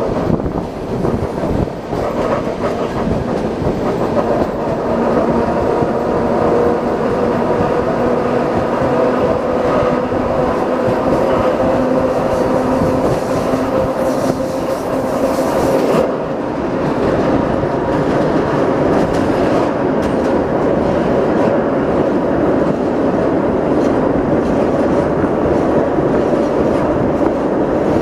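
Train running on the rails, heard from a carriage window: a steady rumble and wheel clatter, with a humming tone through the first half.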